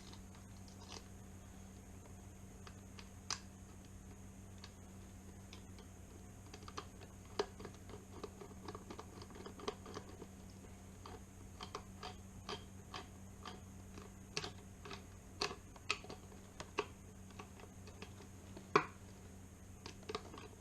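Scattered small clicks and ticks of screws being fitted and turned in with a hand screwdriver to mount a Kwikset knob lock, with one sharper click near the end. A steady low hum sits underneath.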